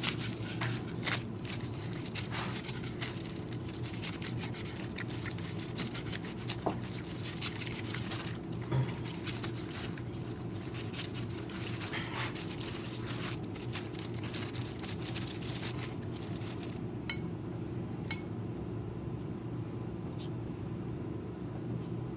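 Chef's knife slicing through a seaweed-wrapped gimbap roll on a plastic cutting board, with repeated crisp cuts and taps of the blade on the board. Two sharp clicks come near the end, over a steady low hum.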